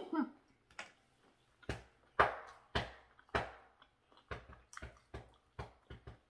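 Crunchy chewing of a fried shrimp egg roll: a sharp crunch as it is bitten, then a run of loud crunches about two to three and a half seconds in, settling into lighter, evenly spaced chews.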